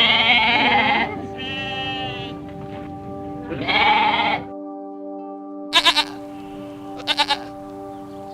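Bleating livestock: a loud bleat, a shorter wavering one, then a third about three and a half seconds in, followed by two short stuttering calls near the end. Background music with steady held chords plays underneath.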